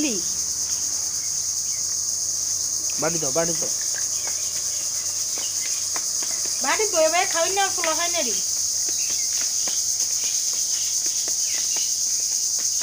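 Steady, shrill chorus of crickets running without a break. A high-pitched voice sounds briefly about three seconds in, and again for about a second and a half around seven seconds in.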